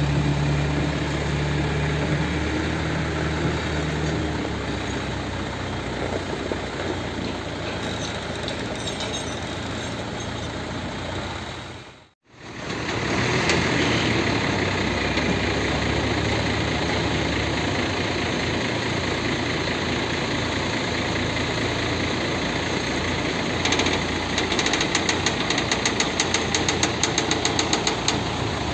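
Hino FM 260 TI truck's turbo-diesel engine running steadily, driving the loader crane's hydraulics during a lift. The sound cuts out briefly about twelve seconds in, and rapid regular ticking joins the engine in the last few seconds.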